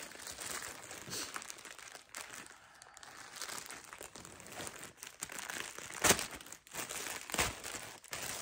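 Paper wrapping crinkling and rustling as a handbag is pulled out of its shipping packaging by hand, with the sharpest, loudest crinkles about six and seven and a half seconds in.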